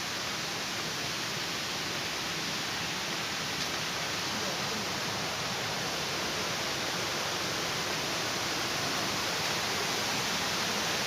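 Steady rush of falling water from a waterfall, an even hiss with no breaks, growing slightly louder toward the end.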